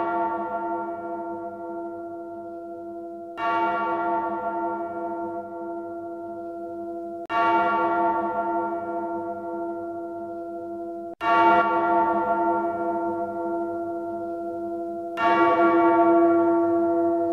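A large church bell tolling slowly, struck about every four seconds, each stroke ringing on and fading before the next.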